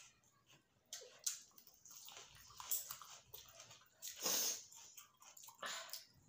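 Eating by hand: fingers mixing rice and chicken curry on steel plates, and chewing, heard as a string of short, irregular soft noises, with one louder noise about four seconds in.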